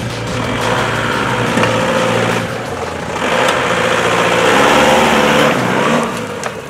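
Mitsubishi Pajero SUV's engine running and revving as it drives slowly past close by, the engine note rising and falling, climbing about three seconds in.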